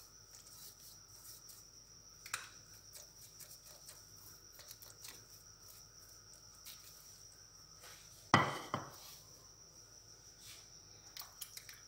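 Pastry brush dabbing and spreading egg yolk over raw naan dough on a marble counter: faint soft taps and brushing strokes with a few light clicks. A single loud knock comes about eight seconds in, and a faint steady high whine sits behind it all.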